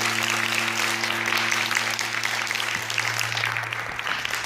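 Audience applauding, dense clapping that eases slightly toward the end, with a low steady hum beneath it.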